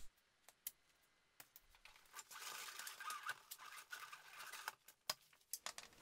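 Faint scattered clicks and light scratching, like tools or parts being handled, with a faint steady hiss for a couple of seconds in the middle.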